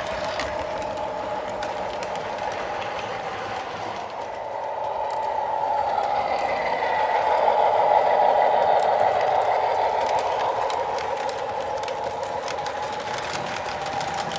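An O gauge three-rail model freight train rolling along the track, its wheels clattering on the rails. The sound swells toward the middle as the Alco RS-3 diesel locomotive passes close by, with a faint whine, then eases as boxcars roll past.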